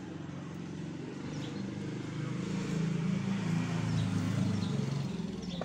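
A motor vehicle's engine hum going by, swelling from about two seconds in and easing off near the end, with a few faint light clicks.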